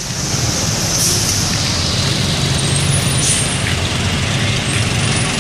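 Heavy road traffic with a large vehicle's engine running close by, a steady rumble, and a short hiss about three seconds in; no telolet horn sounds.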